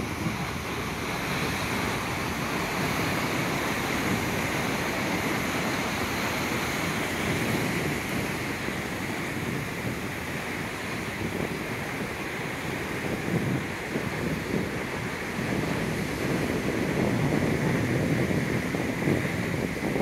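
Atlantic surf breaking against rocks below a cliff, a continuous wash of water, with wind gusting on the microphone.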